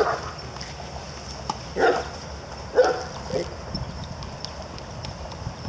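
A dog barking, four short barks in the first half, then stopping.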